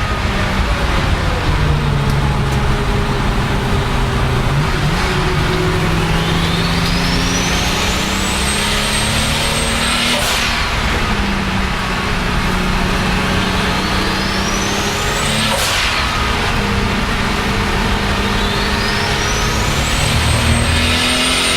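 Turbocharged BMW 535i E34 with a 3.8-litre M30 straight-six pulling hard, a high turbo whistle climbing in pitch over a couple of seconds and holding. Twice the whistle ends in a sharp blow-off valve hiss as the throttle is lifted, and a third whistle climbs near the end.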